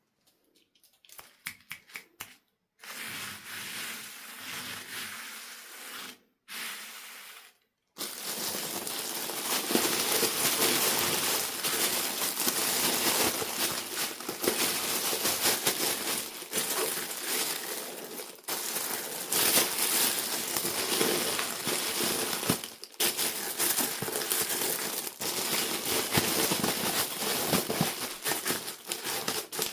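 Plastic and cardboard toy packaging being crinkled, crushed and torn open by hand, with many small clicks and crackles. It starts with a few scattered ticks, breaks off abruptly twice, then runs on as dense continuous crackling.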